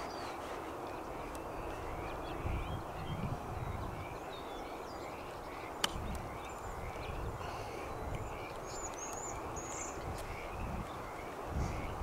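A golf club strikes through the sand on a greenside bunker shot, a single sharp crack a little before six seconds in. Behind it, a chirping call repeats about twice a second, and wind gusts rumble on the microphone.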